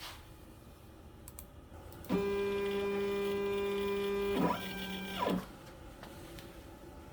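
X-Carve CNC router's stepper motors whining through two moves: a steady-pitched tone for about two seconds starting two seconds in, then a shorter one of about a second whose pitch rises at the start and falls at the end.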